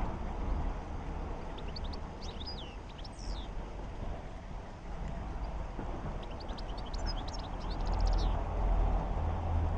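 Small birds chirping in two spells of quick falling notes, about two seconds in and again about seven seconds in, over a low steady hum.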